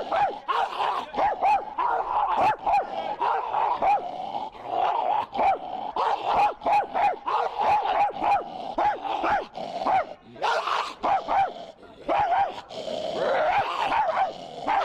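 A man imitating a dog, barking over and over in quick, loud, yelping barks, several a second, with a short pause about two thirds of the way through.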